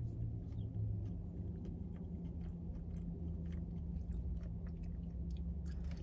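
A person chewing a soft breakfast biscuit sandwich close to the microphone, with many small wet mouth clicks, over a steady low hum.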